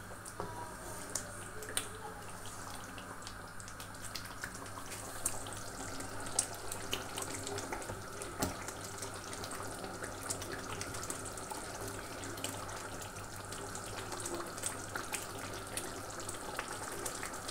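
Kebabs in a thick yogurt gravy sizzling and bubbling as they are fried down in an enamel karahi, a steady hiss with scattered clicks and scrapes of a wooden spatula against the pan.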